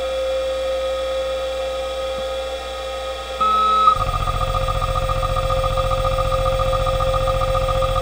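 Seagate ST-157A-1 40 MB 3600 RPM IDE hard drive running with a steady whine. About four seconds in, a fast, even low chatter sets in over the whine: the drive seeking in the factory test mode its jumper is set for.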